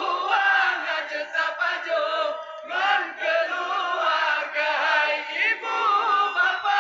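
Young men singing a melodic Ramadan sahur wake-up call into a microphone, the call that rouses people for the pre-dawn meal, with long held notes.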